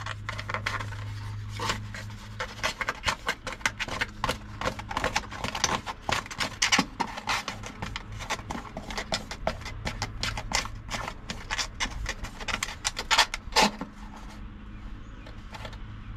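A wooden stir stick scrapes and dabs runny marine epoxy onto a boat's hull floor, making a quick, irregular run of small clicks and scrapes, loudest about thirteen seconds in. A steady low hum sits underneath.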